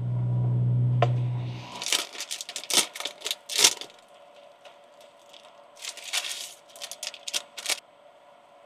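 Plastic instant-noodle seasoning packets crinkling as they are torn open and emptied over a pot, in two clusters of sharp crackles, about two and about six seconds in. A low steady hum runs for the first second and a half and then stops.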